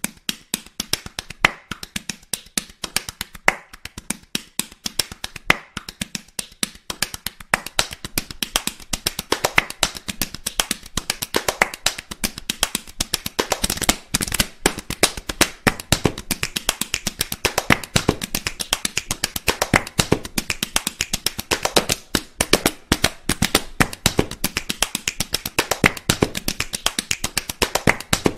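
Bare skin slapped like a drum: several pairs of hands smacking a shirtless man's belly and chest in a fast, rhythmic patter of sharp slaps.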